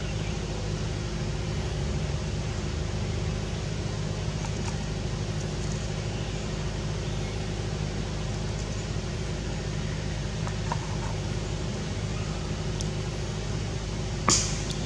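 Steady low mechanical hum, like a motor or distant traffic, with one sharp crack near the end.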